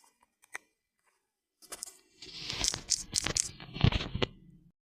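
Rustling, crackling handling noise close to the microphone, with several sharp knocks, as the recording device is handled; it cuts off abruptly near the end as the recording stops.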